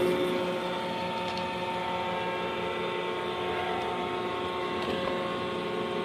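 iRobot Roomba i3 robot vacuum running as it drives across the floor: a steady motor hum and whine over vacuum and brush noise, heard from a camera riding on top of it.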